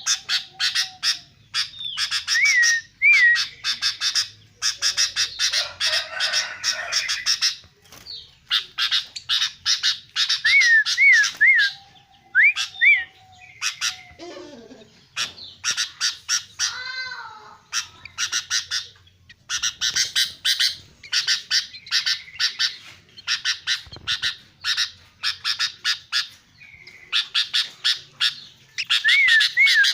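Albino sooty-headed bulbul calling in long bouts of rapid, harsh chatter broken by short whistled phrases, with brief pauses between bouts.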